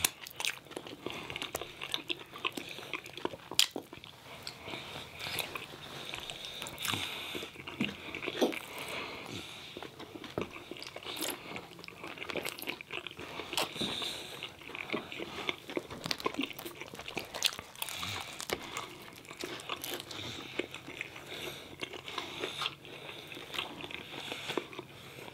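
Close-miked eating sounds of people biting and chewing pizza and chicken wings, with many small, irregular mouth clicks and smacks throughout.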